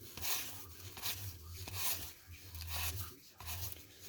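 Cardboard trading cards from a 1991 Topps pack sliding against one another as they are flipped through one at a time, a soft swish about every half second.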